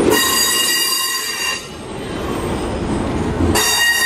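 Stainless-steel passenger cars rolling past, their wheels squealing on the rail in a high, steady ringing squeal. The squeal stops about a second and a half in and comes back near the end, over a rolling rumble.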